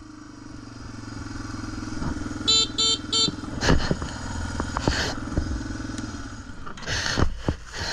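Motorcycle engine running steadily at low speed. Three short beeps come about two and a half seconds in, and scattered knocks and clatters follow later on a bike whose chain has been jumping.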